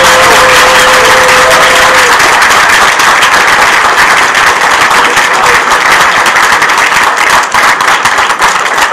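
Audience applauding loudly with continuous clapping. A steady tone is held over the clapping for about the first two seconds.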